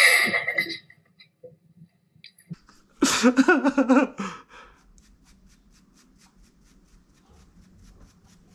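A short, loud burst of a person's voice, under a second long, then about a second of wavering voice around three seconds in; faint ticks after that.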